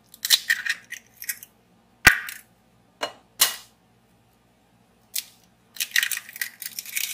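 Eggs cracked on the rim of a glass mixing bowl: several sharp taps of shell on glass, the loudest about two seconds in, then crackling shell as an egg is pulled apart near the end.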